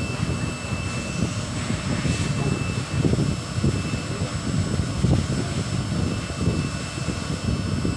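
Steady low rumble of background machinery with a faint high-pitched whine, which fades out about a second in and returns near the end.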